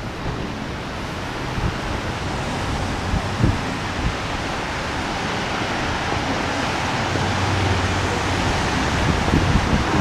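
Wind buffeting the microphone over a steady hiss of outdoor street noise, with a low hum swelling for a second or so about seven seconds in.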